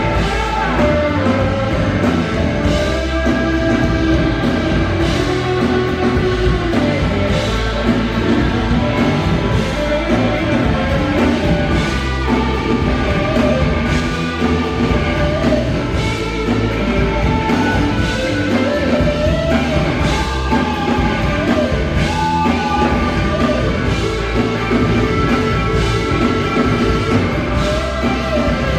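A live rock band playing loudly, with electric guitar to the fore over a drum kit.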